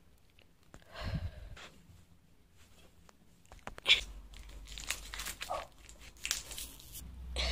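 Clear sticky tape being pulled from the roll and wound around wrists: a run of short, crackly rips, with a sharp snap about four seconds in.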